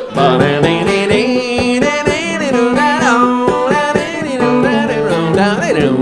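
Acoustic band music with plucked guitar and a melody line carried without lyrics.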